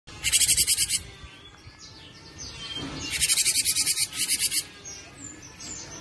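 Cinereous tit (gelatik batu) calling in two bursts of rapid, high repeated notes: a short burst near the start and a longer one about three seconds in, with faint thin chirps between.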